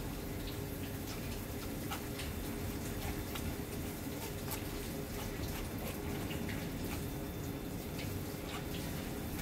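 Metal spoon pressing and scraping soft steamed pumpkin through a fine wire-mesh sieve, giving light scrapes and scattered small clicks over a steady low background hum.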